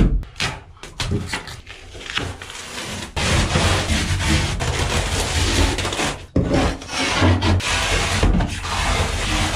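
Old pleather lining and its fuzzy backing being ripped and peeled off a boat's cabin wall by hand: a rough tearing and scraping, quieter for the first three seconds and louder after that, with a brief pause a little past the middle.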